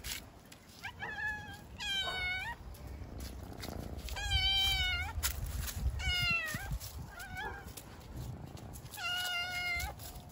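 Cats meowing repeatedly: about six separate meows, each half a second to a second long, the longest about four seconds in.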